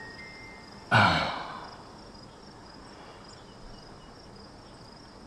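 A single short, breathy sigh from a person about a second in, fading quickly, over a faint steady chirping of crickets.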